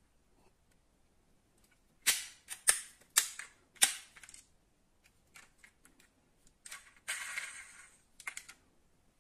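Die-cast metal model car handled in the hands, its opening doors and panels clicking and snapping shut: four sharp snaps in under two seconds, then fainter clicks, a rattle lasting about a second and a few last clicks.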